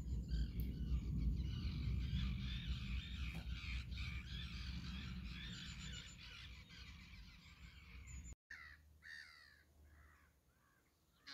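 Outdoor ambience by open water: a low rumble that fades away, under a busy chorus of distant birds calling. After a cut, the rumble is gone and only a few scattered bird calls are left.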